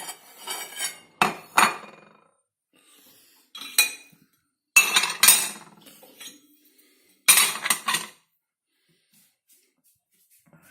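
Dishes clattering and clinking in about five short bursts as clean crockery is lifted out of a dishwasher rack and set down; it goes quiet for the last couple of seconds.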